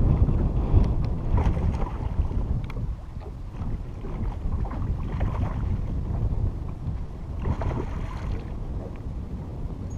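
Wind buffeting the microphone over the lap of lake water against a small boat's hull. About eight seconds in there is a burst of splashing as a hooked bass thrashes at the surface beside the bow.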